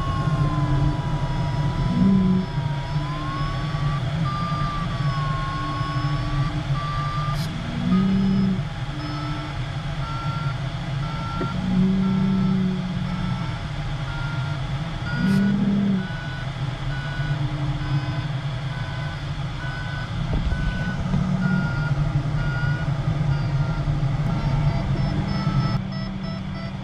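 Glider cockpit with steady airflow noise and an electronic audio variometer tone that wavers, then rises in pitch and turns into a run of even beeps about seven seconds in, the climb signal in lift. Short low-pitched tones sound every couple of seconds.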